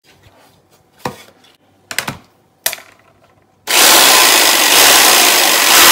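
A few light knocks, then about two-thirds of the way in an electric jigsaw starts up and runs steadily, its blade cutting through thin plywood.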